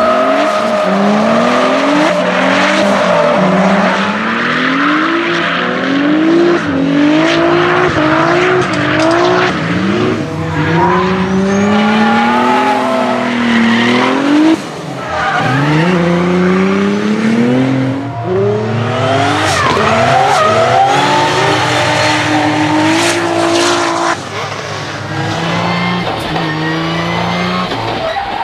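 Nissan 200SX S13 drift car with a swapped twin-turbo VR38DETT V6 from the R35 GT-R, revving up and down again and again while drifting, its rear tyres screeching and smoking. The engine pitch climbs and drops every second or two as the throttle is worked through the slides.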